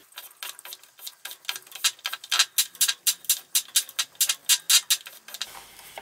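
A one-piece bottom bracket being pressed into a carbon BBright frame shell with a threaded bearing press, creaking as a quick run of sharp clicks, about five a second, as the tight-fitting unit is drawn into the shell.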